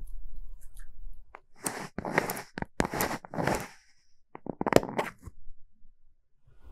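Plastic gasket greasing box (Lubri-Joints) being twisted in the hands: several rough rubbing, scraping strokes as the lid is turned to coat the gasket inside with silicone grease, followed by a few sharp plastic clicks as the lid comes off.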